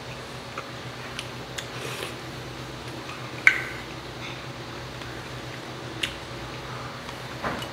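Tableware clinks while eating: a metal spoon knocking against a stainless steel rice bowl and stone soup bowl, with a sharp ringing clink about three and a half seconds in and another near six seconds. A steady low hum runs underneath.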